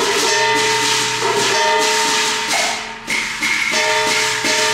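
Cantonese opera instrumental accompaniment, dominated by loud clashing metal percussion over held notes, breaking off briefly a few times.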